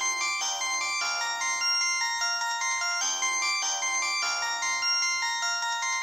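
Samsung SGH-T400 flip phone playing its stock polyphonic ringtone 'Cool 1' (40-tone MMF chip) through its loudspeaker. A bright synthesized melody of short stepped notes, its phrase coming round about every three seconds.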